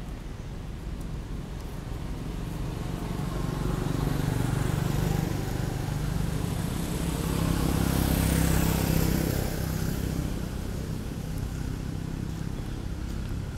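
A motor vehicle's engine passing by: a low hum and rush that grows louder about three seconds in, swells twice, and fades after about ten seconds.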